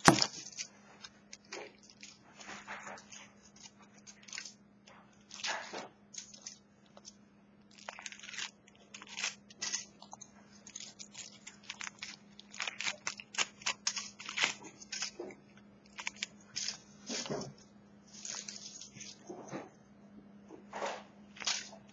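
Crinkling and crackling of a thin foil wrapper being peeled off a chocolate egg by hand, in irregular bursts.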